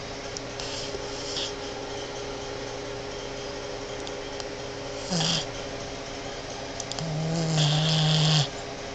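Boston Terrier snoring: a short snore about five seconds in, then a longer, deep snore that grows louder and cuts off abruptly.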